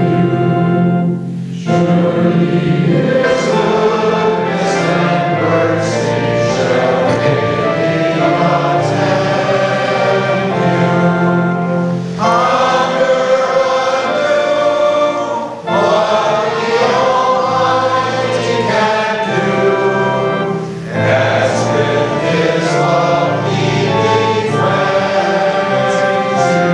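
Congregation singing a hymn with organ accompaniment, a steady bass under the voices, pausing briefly between phrases.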